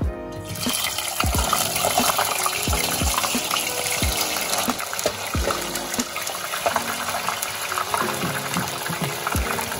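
Mahseer fish bones and scraps deep-frying in hot oil in a wire-mesh strainer, a dense sizzle and bubbling that starts about half a second in as they go into the oil. Background music plays underneath.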